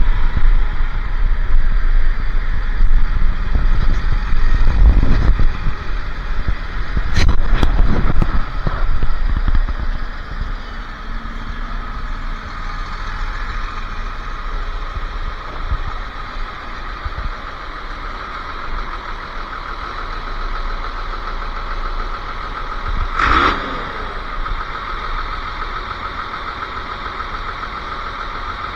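Truck engine running, loud and rumbling for the first ten seconds or so, then settling to a steadier, quieter idle; a few sharp knocks come around seven seconds in and once more near the end.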